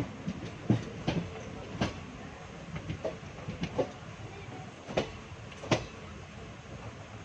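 ICF passenger coach running over the track, a steady low rumble broken by irregular sharp clacks and knocks as the wheels cross rail joints.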